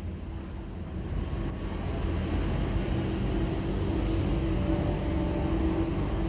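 Construction machinery running steadily: a low engine rumble with a steady hum, getting a little louder over the first two seconds.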